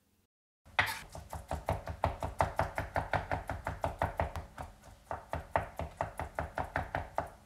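Kitchen knife rapidly mincing raw yellowtail (hamachi) on a plastic cutting board, chopping it nearly to a paste: quick, even knocks of the blade on the board, about five or six a second, starting about half a second in.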